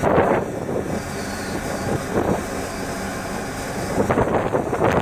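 Strong wind of about 30 knots buffeting the microphone, swelling in three gusts over a steady low rumble.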